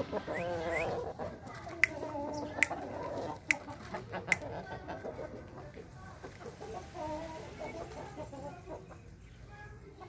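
Aseel chickens clucking, strongest in the first few seconds and again more faintly later on, with a few sharp clicks in the first half.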